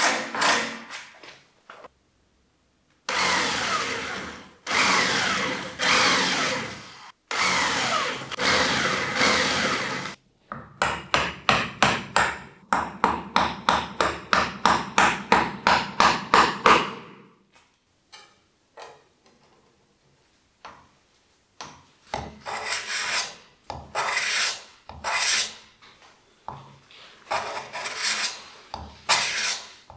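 Hand tools working olive wood: a file rasping in long back-and-forth strokes, then a run of quick, even strokes, a quieter stretch with faint ticks, and then short scraping strokes of a rounded card scraper.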